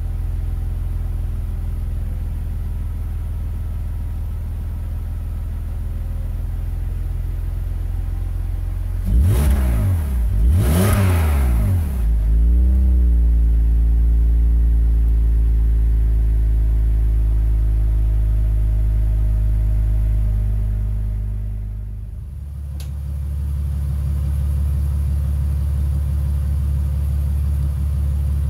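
BMW E46 exhaust heard at the tailpipes: the engine idles, is blipped twice about a third of the way in and drops back to a steady idle. After a cut near the three-quarter mark, the modified exhaust idles with a rougher note.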